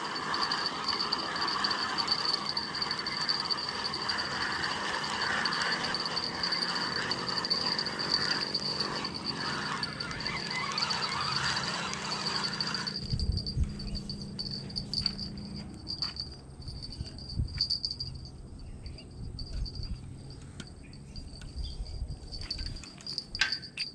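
Insects droning steadily at a high pitch. A denser chorus of chirping fills the first half and cuts off suddenly about halfway through, leaving scattered light clicks and knocks.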